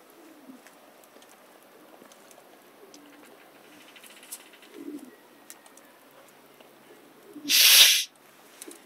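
A bird's low cooing calls, repeated several times with pauses between, over faint crackling of the wood fire burning in a tin-can rocket stove. A loud rush of noise lasts about half a second about seven and a half seconds in.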